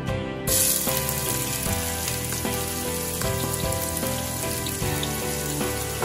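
Chopped onion hitting hot oil in a stainless steel pot: a sizzle starts suddenly about half a second in and carries on steadily, over background music.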